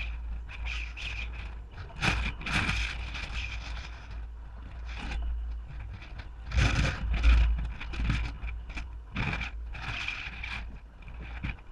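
Wind buffeting the microphone in irregular gusts, with a constant deep rumble underneath.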